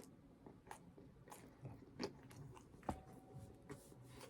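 Near silence with a few faint, short clicks and crunches, about one a second, from a person handling and biting into a microwaved steak and cheese sub.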